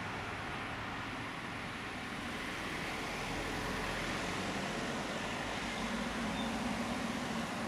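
Road traffic passing, a steady hiss of tyres with a low rumble that swells toward the end as a vehicle goes by.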